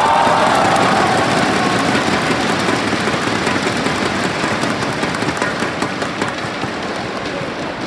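Arena crowd cheering with many people clapping rapidly, dense and loud at first and easing slightly toward the end.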